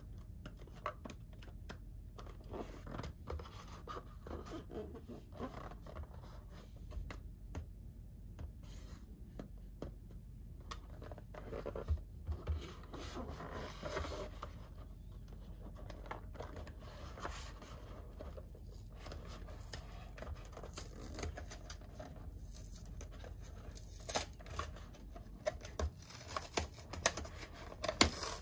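Hands unboxing a toy playset: scattered scratching, tearing and crinkling of cardboard and plastic packaging, with small clicks and taps that get louder near the end.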